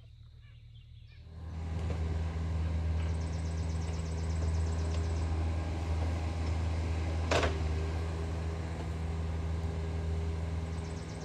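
Compact excavator's diesel engine running steadily as it digs. It comes in about a second in and has a single sharp clank a little past the middle.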